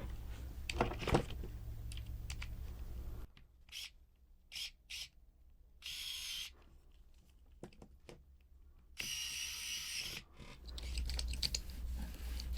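Small plastic model-kit parts being handled, with scattered clicks and light rattles as pieces are fitted together. About 6 s in and again about 9 s in come two short bursts of hiss.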